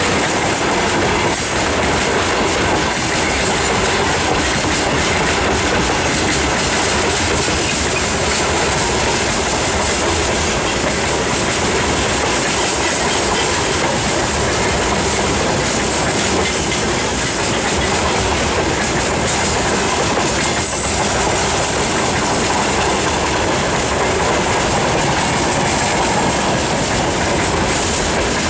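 Freight train rolling past at close range, a loud steady rumble with wheels clattering over the rail joints.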